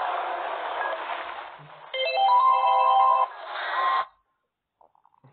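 Audio of a mobile game video ad playing on the phone. A noisy rush fades over about two seconds, then a short musical jingle of several held notes stepping upward. It cuts off suddenly about four seconds in.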